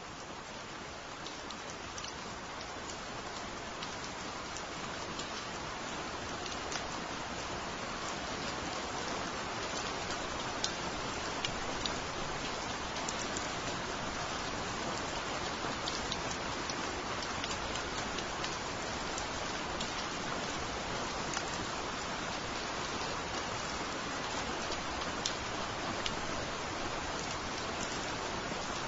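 Steady rain falling on foliage and wet ground, with many sharp single drop taps standing out from the hiss. It grows gradually louder over the first several seconds, then holds steady.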